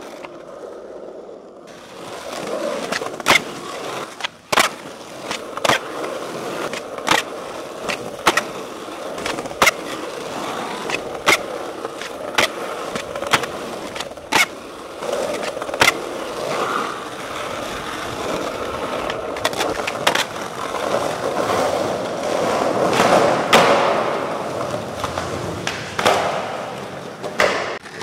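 Skateboard wheels rolling over asphalt and concrete, with many sharp clacks of the board hitting the ground spread through the rolling.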